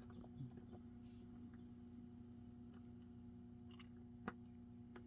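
Faint, scattered clicks of a hook pick working the pins of a key-in-knob lock cylinder held under turning tension, the sharpest about four seconds in, over a steady low hum.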